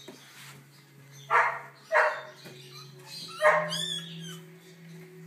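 Newborn border collie–whippet cross puppy crying: three short, loud yelps, the third followed by a few thin high squeaks.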